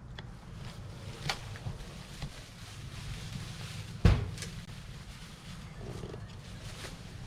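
A steady low rumble, with a few light clicks and one sharp, loud thump about four seconds in.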